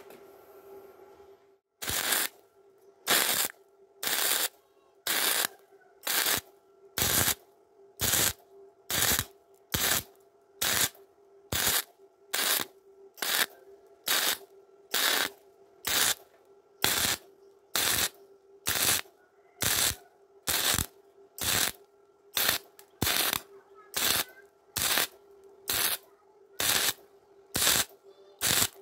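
Gasless flux-cored MIG welding arc crackling in short, regular bursts about once a second, the trigger pulsed to stitch-weld thin galvanized steel rather than run a continuous bead. A steady hum continues under the bursts.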